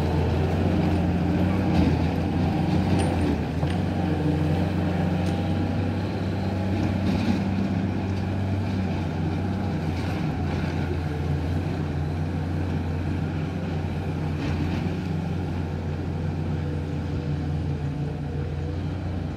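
Heavy goods truck's diesel engine running steadily as the truck pulls away, a low hum that slowly fades.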